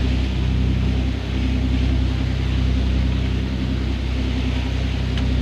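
Boat engine running steadily, with a low, even hum and a steady hiss over it.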